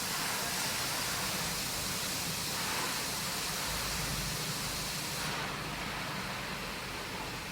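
Steady hiss of background noise with no distinct clicks or knocks; the highest part of the hiss drops away about five seconds in.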